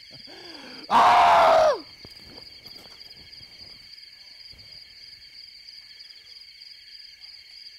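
Night-time ambience of insects chirring steadily in a fast pulse. About a second in, one loud short cry cuts across it, falling in pitch and lasting under a second.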